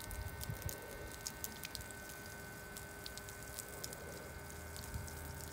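Battery-operated liquid transfer pump running with a faint steady hum as it draws water out of a jet ski's footwell.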